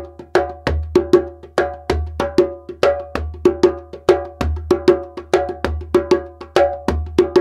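Djembe played by hand in a steady repeating rhythm of sharp strokes, about four a second, mixing ringing tone strokes with brighter, cracking slaps.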